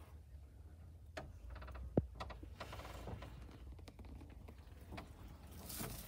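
A scatter of light clicks and knocks, with one sharp knock about two seconds in and a quick rattle of small ticks around it, then a short hiss near the end.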